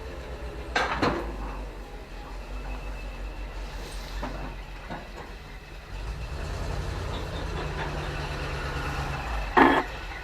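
GMC C7000 dump truck's engine idling with a low, steady pulse, getting a little louder about six seconds in. Two brief sharp sounds cut across it, one about a second in and a louder one near the end.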